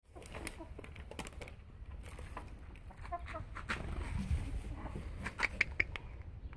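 Leghorn hens clucking with a few short calls, among a run of sharp taps and clicks that are loudest near the end.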